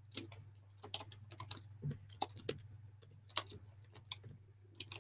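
Computer keyboard keys clicking faintly in short, irregular runs, over a low steady hum.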